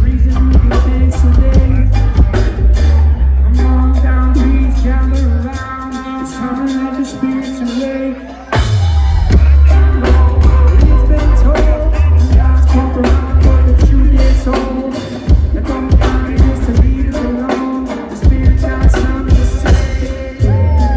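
Live reggae band playing with a heavy bass line, drums and sung vocals; the bass drops out for a few seconds midway and comes back in with a hit.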